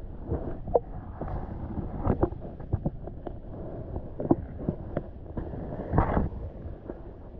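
Muffled underwater sound from a submerged camera: a low, dull churning of water with frequent short knocks and clicks from the camera being moved and handled, the loudest cluster about six seconds in.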